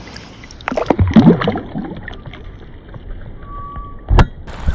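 Knocking and clattering on a fishing kayak, loudest for about a second near the start, then one sharp thump about four seconds in. Near the end, wind noise on the microphone.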